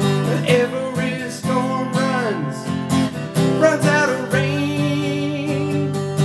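Taylor 224 K DLX acoustic guitar strummed in chords, closing out a song. For the first few seconds a wordless vocal line wavers and glides in pitch over the guitar.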